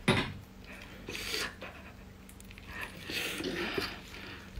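Gloved hands pulling and stretching a thick arm of a giant octopus: soft rubbing, rasping noises in a few short spells, near the start, about a second in and again about three seconds in.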